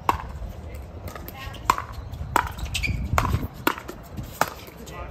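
Pickleball rally: paddles striking a plastic pickleball in a quick exchange of volleys, about six sharp pops roughly two-thirds of a second apart.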